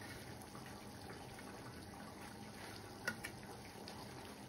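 Tomato sauce simmering in a pan, a steady bubbling hiss that is very loud to the cook, with one sharp click about three seconds in.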